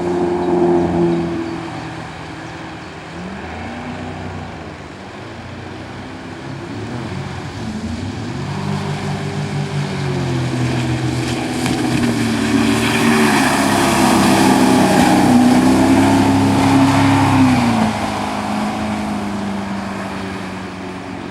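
Tohatsu 140 hp four-cylinder two-stroke outboard motor running under changing throttle: its note drops about two seconds in, climbs from about eight seconds, holds high and loudest from about twelve to seventeen seconds, then falls back.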